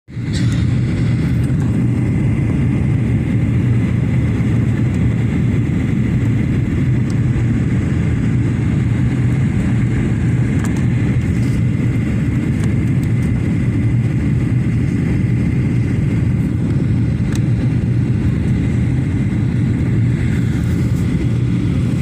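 Cabin noise inside a Boeing 737 jet airliner in flight: the engines and rushing air make a steady low roar with a faint high whine running through it.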